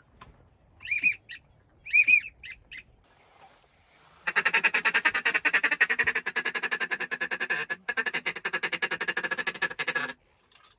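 A few short whistled calls from flying ducks. From about four seconds in comes a dense, rapid chorus of many waterfowl calling at once, which starts and cuts off abruptly near the end.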